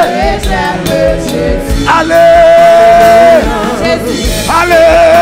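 Live gospel praise music: a band with drum kit and congas playing under a male singer. There are two long held notes, one about two seconds in and one near the end, where he sings "Allez".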